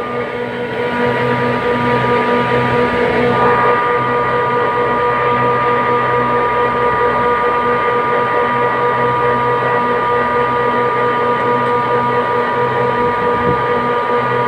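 Steady running hum of air-conditioning plant machinery: a low drone carrying several steady whining tones. A further higher tone joins about three and a half seconds in.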